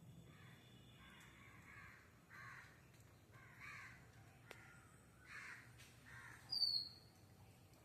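Birds calling: a run of faint, harsh calls about once a second, then one short, sharp high chirp near the end, the loudest sound.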